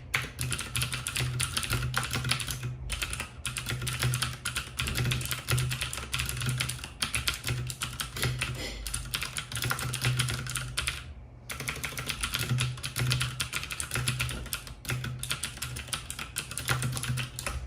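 Keychron K2 mechanical keyboard with Gateron switches being typed on quickly, a dense run of keystroke clicks with two short pauses, about 3 seconds in and about 11 seconds in.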